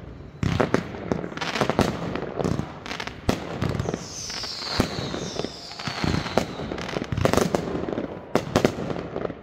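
Aerial fireworks going off in quick succession, bang after bang, with two falling whistles about four and five seconds in.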